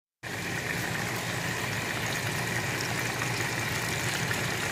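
Chicken wings deep-frying in a pot of oil: a steady sizzle with a low hum under it, starting just after the beginning.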